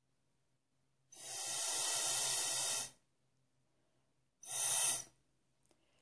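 Two rushes of blown breath: the first lasts about two seconds, the second is shorter, near the end. No whistle note sounds.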